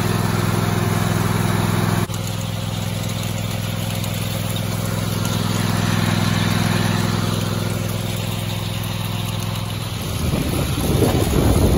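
Riding lawn mower engine running steadily, driving the backyard ski tow rope looped around its rear wheel. Near the end, wind buffets the microphone.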